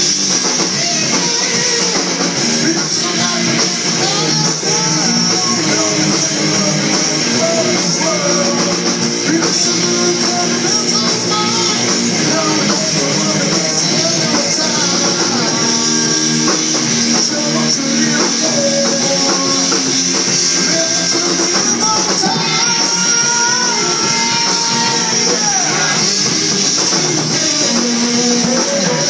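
Rock music with guitar and a gliding melody line, played loud and steady throughout.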